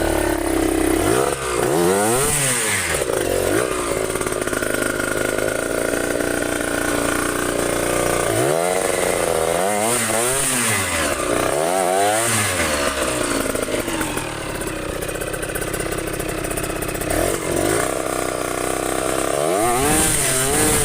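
Trail motorcycle engine revving hard and dropping back several times, running steadily in between, as the bike struggles to climb a slippery track.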